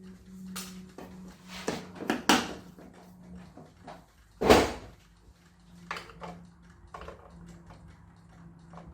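A string of knocks and clunks from parts being handled while taking apart an LCD TV, the loudest about four and a half seconds in, over a faint steady hum.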